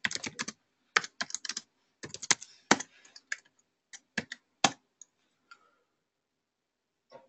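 Typing on a computer keyboard: quick runs of key clicks as a shell command is entered, stopping about five seconds in, with one more lone click near the end.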